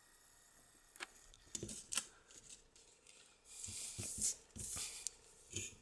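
Faint handling sounds of a circuit-board metal detector kit being laid down on a desk. There is a click about a second in, a few light knocks, then a stretch of scraping and rustling, and one more knock near the end.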